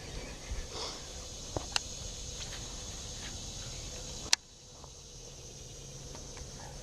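Steady high-pitched insect chirring over a low background haze, with a few sharp clicks. The loudest is a single click about four seconds in.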